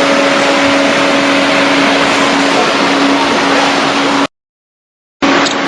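A 125 hydraulic baler running, its pump unit giving a loud, steady mechanical noise with a steady hum. The sound cuts out completely for about a second near the end, then resumes.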